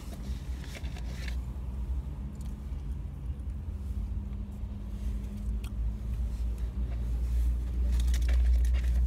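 A car idling, heard from inside the cabin: a steady low rumble with a faint hum above it, growing a little louder near the end. Faint rustles and light clicks come from food being handled in the lap.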